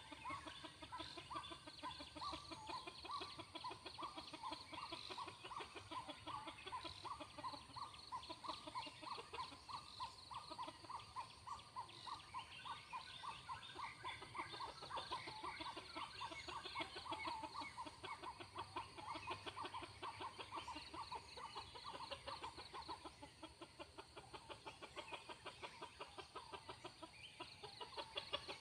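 Junglefowl clucking in a long run of quick, repeated short calls.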